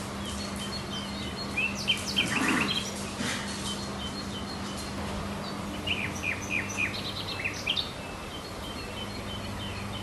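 Small birds chirping in two short flurries of quick, high chirps, over a steady low hum.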